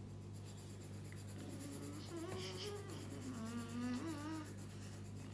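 Coloured pencil scratching on paper as a colouring-book picture is shaded in, over a steady low hum. A faint wavering voice is heard in the middle.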